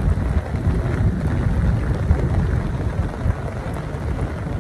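Wind buffeting the phone's microphone in a steady low rumble, over the hiss of falling rain.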